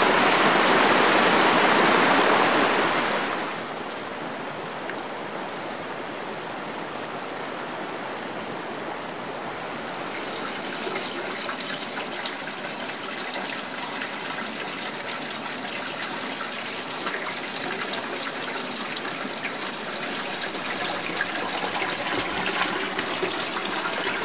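Loud, steady rushing of hot spring water for about three seconds, then it cuts to the quieter, steady splash of hot spring water pouring from a pipe into a bathtub.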